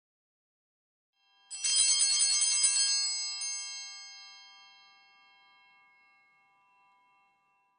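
Altar bells shaken in one quick, bright jingle about a second and a half in, then left ringing and slowly dying away over several seconds. This is the ring given at the elevation of the chalice during the consecration.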